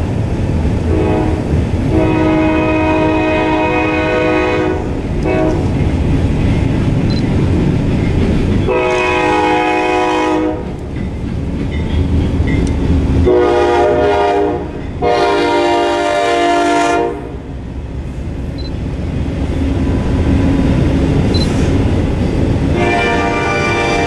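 Freight train rolling past close by, a steady rumble of wheels on rail. Over it a diesel locomotive horn sounds a series of blasts, mostly long with a few short ones, the last starting near the end.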